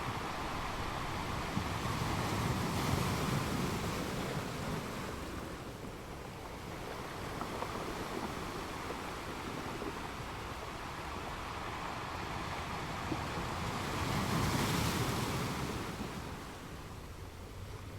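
Ocean surf: a steady wash of breaking waves that swells twice, about a dozen seconds apart, and ebbs in between.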